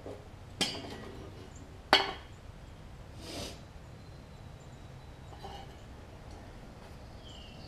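Sharp metal clinks from a bolt and nut being worked by hand into a push mower's self-propel mount. Two clicks come, the louder about two seconds in, then a brief rustle of handling.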